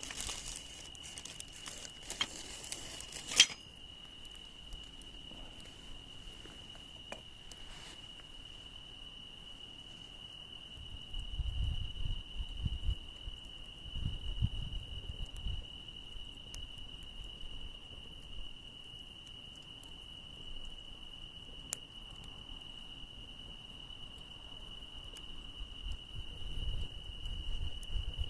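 Insects, such as crickets, trilling steadily on one high pitch, over a wood campfire that crackles in the first few seconds and gives one loud pop about three seconds in. Spells of low rumble come and go around the middle and near the end.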